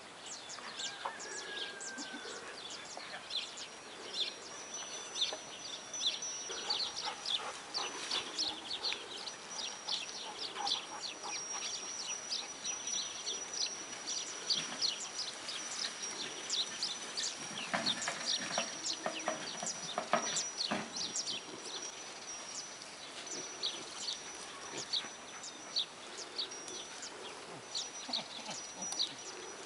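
Birds chirping in a dense, rapid stream of short high calls over a steady thin high-pitched tone, with a few louder, lower calls about eighteen to twenty-one seconds in.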